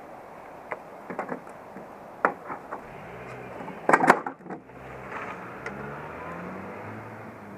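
A few knocks and clatters from hands handling a Lambretta scooter's bodywork and controls, the loudest cluster about four seconds in, over a steady low background noise.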